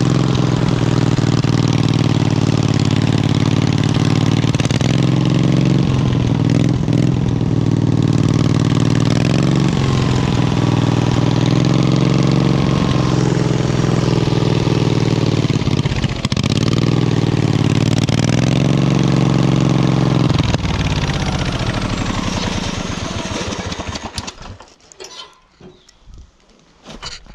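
Wheel Horse lawn tractor's engine running hard, its revs dipping and picking up again several times, then shut off about twenty seconds in and winding down to a stop over a few seconds.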